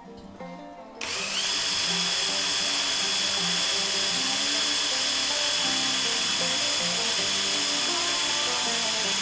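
Cordless drill spinning up about a second in and then running steadily with a high whine, its bit boring into a broken-off hardened steel cam cap bolt.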